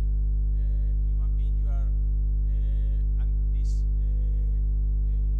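Loud, steady electrical mains hum in the recording, with faint, indistinct voices underneath.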